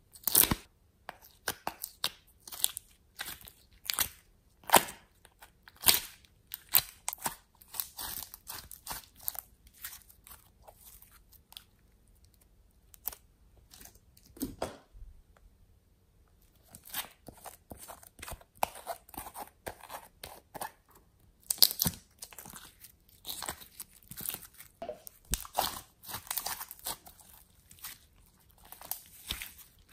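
Hands squeezing and pressing glossy slime: an irregular string of sharp, wet clicks and crackling pops as air pockets burst, with a lull about halfway through.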